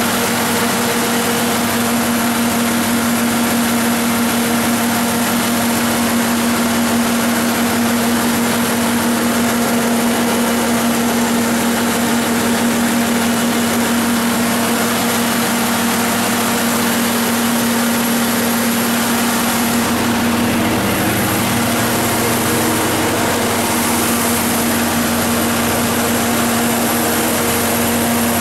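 Cummins GTA855B turbocharged natural gas engine of a Katolight 250 kW generator set running steadily at constant speed, a loud, even hum whose tone shifts slightly about twenty seconds in.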